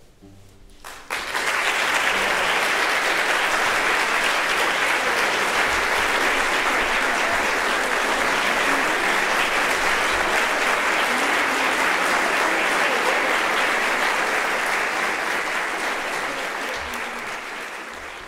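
Audience applauding, breaking out about a second in and fading out near the end.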